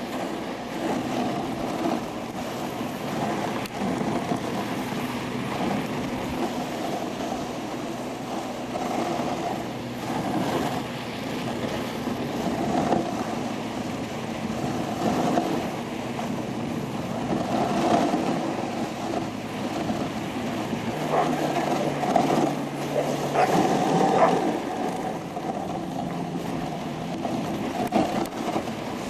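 A dog sled moving over packed snow: a continuous rumble and scrape of the runners.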